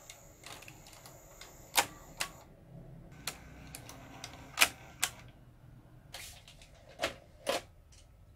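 Bang & Olufsen VX5000 VHS VCR's tape transport mechanism clicking and clunking as it stops, unthreads the tape and ejects the cassette: about eight sharp mechanical clicks spread over several seconds, the loudest about halfway, with a faint motor whir in between.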